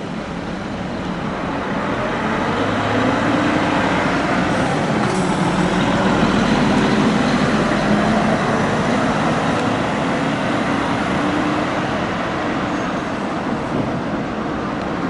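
Large tour coach's diesel engine pulling away and accelerating, growing louder over the first few seconds and then slowly easing off as it drives away, over general road traffic noise.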